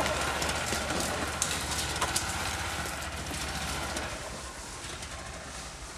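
Engine of a small open utility vehicle running and fading steadily as it drives away, its low hum dying out about two-thirds of the way through, with a few light clicks.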